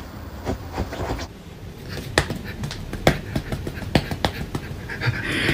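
A cat batting at a person's hand: a few scattered sharp taps over soft handling noise in a small room.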